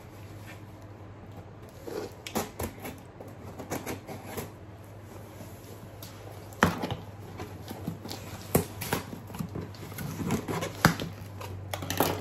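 Scissors cutting the packing tape on a cardboard shipping box, with irregular scrapes, clicks and cardboard rustling as the box is worked open.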